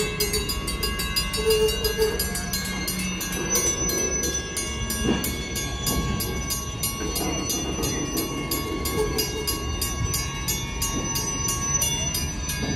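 Freight boxcars rolling slowly across a grade crossing: steel wheels rumbling and clanking over the rails with a steady low rumble, while the crossing signal's bell rings in an even, repeating beat.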